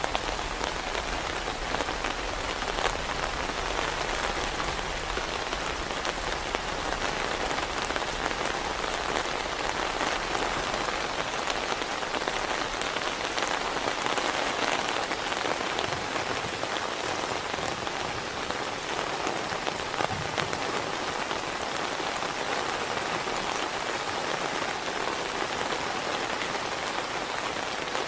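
Heavy rain falling steadily, with scattered individual drops ticking sharply through the even rush.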